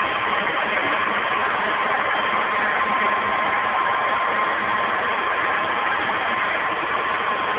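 Electric blower running steadily, a continuous rushing of air with a faint whine, fanning the fire.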